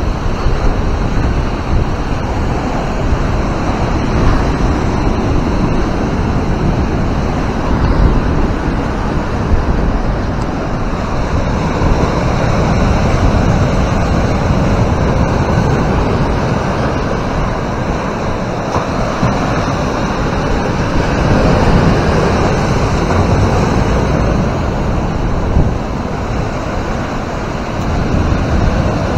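Sea waves breaking and washing up the sand and against the boulders of a rock groyne: a continuous rush that swells and eases. Wind rumbles on the microphone underneath.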